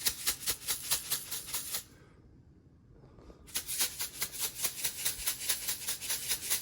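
Salt shaker shaken rapidly over the salsa, a quick rattling of about five or six shakes a second, in two bursts with a pause of about a second and a half between them.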